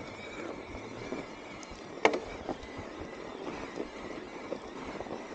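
Mountain bike rolling down a steep snowy trail: a steady hiss of the tyres on snow, with small rattles and one sharp knock from the bike about two seconds in.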